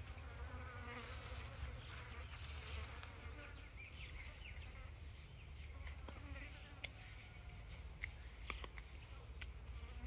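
Outdoor insect buzzing, with short falling chirps about every three seconds and a few light clicks in the second half, over a steady low rumble.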